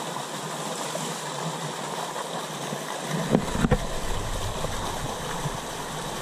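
Small rocky stream rushing over a short drop: a steady hiss of white water. A few sharp knocks come about three and a half seconds in, followed by a low rumble for the next couple of seconds.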